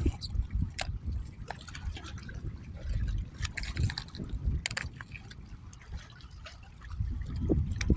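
Water sloshing and trickling close by, with an irregular low rumble and scattered clicks. It eases off for a couple of seconds past the middle and picks up again near the end.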